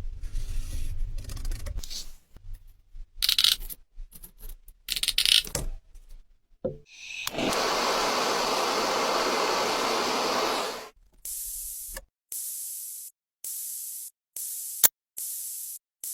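A string of short, cut-together sounds of plastic bumper repair work: scraping and knocks, then a steady hiss lasting about three seconds, then a run of short clipped bursts of noise.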